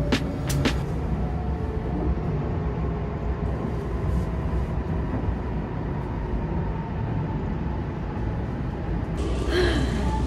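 Steady low rumble of a Shinkansen bullet train heard from inside the carriage as it runs into the station, with a faint thin whine over it. About nine seconds in it gives way to a brighter, hissier station ambience with a brief voice.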